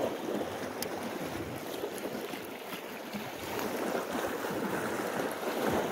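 Small waves lapping and splashing against shoreline rocks, a steady wash of water.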